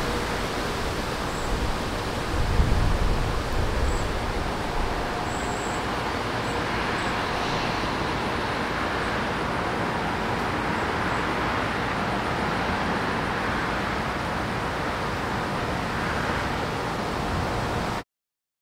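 Steady rushing wind outdoors, with a gust buffeting the microphone about two to four seconds in. The sound stops abruptly near the end.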